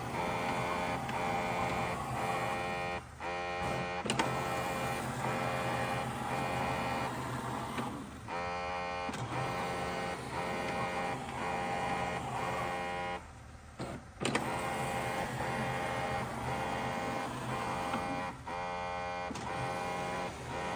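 Shark PowerDetect NeverTouch Pro dock washing the mop pad: a steady electric motor whine that drops out briefly about every five seconds, with a click or two.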